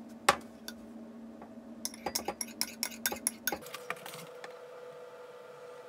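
One sharp knock of crockery, then a metal spoon clinking quickly against a glass, about six clinks a second for nearly two seconds.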